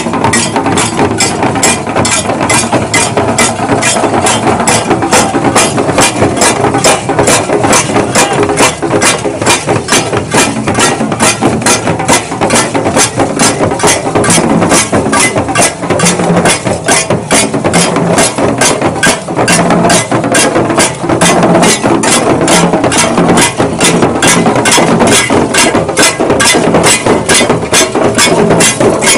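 Warba dance music: shaken rattles keep a fast, even beat of about three strokes a second, loud and steady throughout, over lower drum tones.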